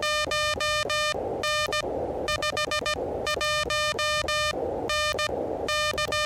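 Elecraft KH1 transceiver's CW sidetone sending Morse code at about 16 words per minute, one steady-pitched beep keyed in dots and dashes. Receiver band noise hisses in the gaps between characters.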